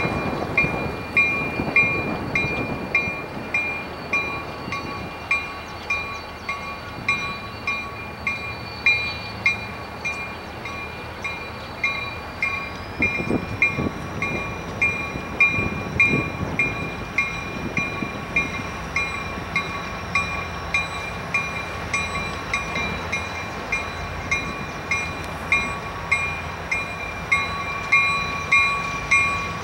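Loaded rail train approaching slowly behind an EMD GP40X diesel locomotive, its engine and wheels a steady low rumble. Over it a bell rings steadily at about one and a half strikes a second.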